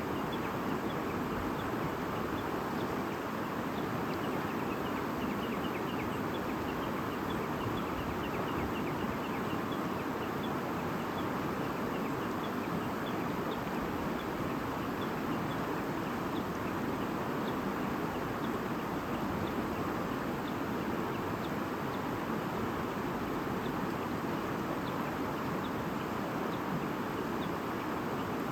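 A stream flowing steadily, with small birds chirping over it: a quick run of short, high chirps a few seconds in, then scattered single chirps.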